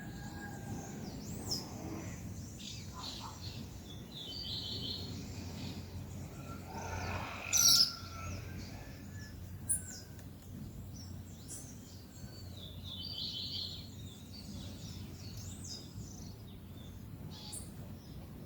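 Several songbirds chirping and calling at a backyard feeder over a steady low background rumble, with one loud, brief noise about seven and a half seconds in.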